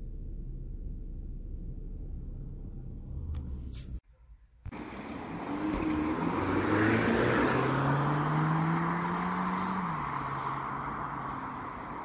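VW Golf Mk6 1.4 TSI petrol engine idling after a cold start, heard from inside the cabin, then a brief gap about 4 seconds in. The same car then drives past with engine and tyre noise swelling, the engine note rising in pitch and falling back as it goes by.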